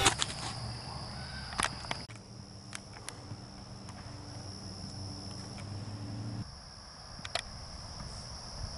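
Crickets chirping in a steady, high-pitched chorus, with a handful of sharp clicks scattered through it and a low hum underneath that cuts out about two-thirds of the way in.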